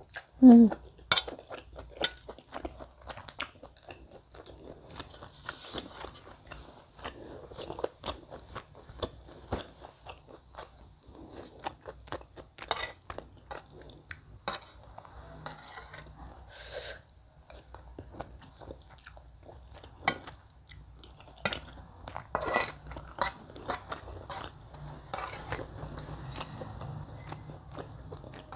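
Close-miked chewing and slurping of rice in clear goat soup, with a metal spoon clicking and scraping against an enamel bowl. A short low 'mm' that falls in pitch comes right at the start.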